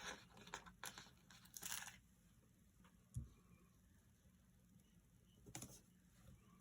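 Faint crinkling and peeling of paper stickers coming off a sticker sheet, followed by a soft tap about three seconds in and a brief paper rustle near the end.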